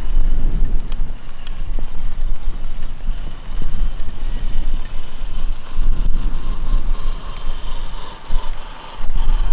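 Wind buffeting the microphone in heavy gusts, a loud low rumble throughout. Under it, in the later seconds, a faint steady whine from the RC crawler's brushless electric motor as it drives over the rocks.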